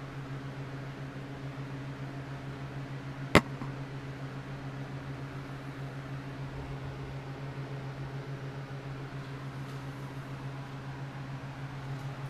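Steady low hum of a Removu S1 handheld gimbal's motors stabilising a GoPro, heard through the camera mounted on it. A single sharp click a little over three seconds in.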